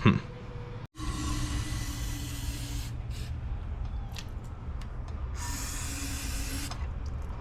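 Aerosol carburetor cleaner spraying in two bursts, the first about two seconds long starting a second in, the second shorter near the end, flushing out a small-engine carburetor.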